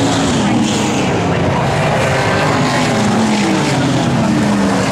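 Engines of several speedway super saloon race cars racing around a dirt oval, a steady dense roar with revs rising and falling as cars pass close by, their pitch dropping as they go past.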